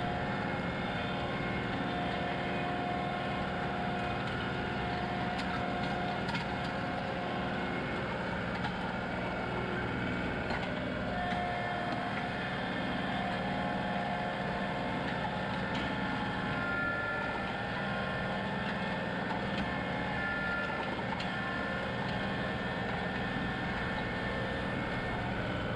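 John Deere 2038R compact tractor's three-cylinder diesel engine running steadily under load as it pulls a soil pulverizer through stiff, dry ground, with a thin high whine that wavers slightly over the engine note.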